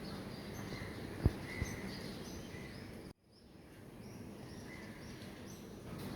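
Small birds chirping in short, scattered calls over steady background noise, with two dull thumps about a second in. The sound drops out briefly about three seconds in, then fades back up.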